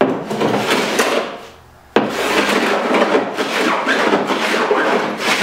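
Block plane shaving the wooden strips of a strip-built kayak hull with quick, repeated rasping strokes, fairing the hull by knocking down the high edges between strips. One run of strokes dies away, then a second run starts abruptly about two seconds in.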